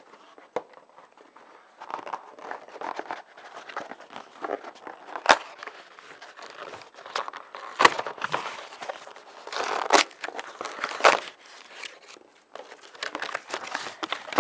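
Cardboard box and its packing being pulled and torn open by hand: irregular crinkling and tearing, with several sharp cracks. The packing is tight, and the part is hard to get out.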